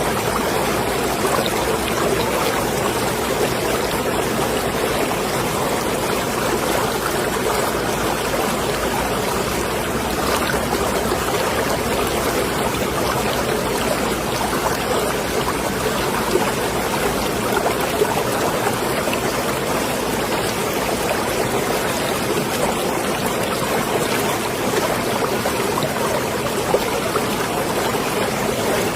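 Marina water sloshing and lapping in a steady wash of small waves, with a few brief louder ticks partway through.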